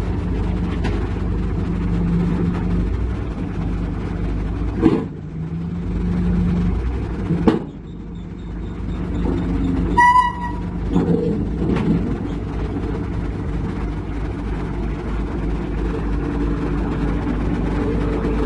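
Heavy diesel engine running steadily, with a few sharp metallic clanks and a short horn toot about ten seconds in.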